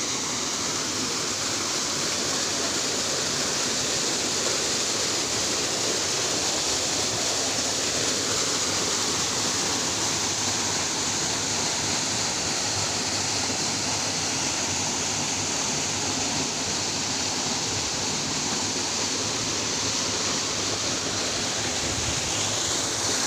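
Steady rush of running water from a waterfall and its rocky creek.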